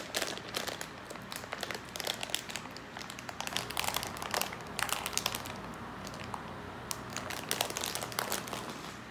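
Plastic gummy-candy bag crinkling irregularly as hands pull and twist at it, trying to tear it open; the bag is not giving way.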